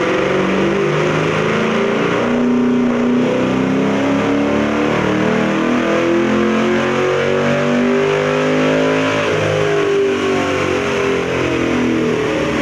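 Ford 4.6L three-valve V8 of a 2005–2010 Mustang GT, fitted with Ford Racing Hot Rod camshafts, making a full-throttle pull on a chassis dyno. Its pitch climbs steadily through the rev range, from about 2,300 to 6,700 rpm, for about ten seconds, then falls away near the end as the throttle is lifted.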